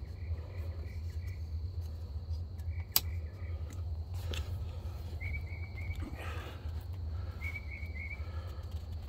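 Night insects: a steady high drone with short chirping trills repeating every couple of seconds, over a steady low rumble. A single sharp click about three seconds in.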